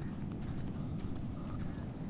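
Footsteps of a person walking on firm sand, about two steps a second, over a steady low rumble of wind on the microphone.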